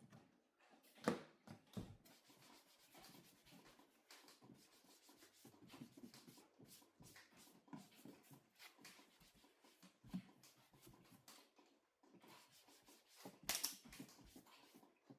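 Faint handling noises: scattered small clicks, taps and scrapes, with a sharper knock about a second in and another near the end.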